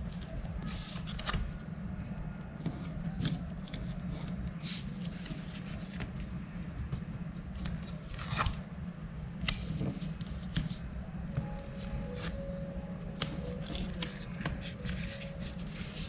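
Hand work on leather: a string of short scrapes and taps from tools and material being handled, over a steady low hum.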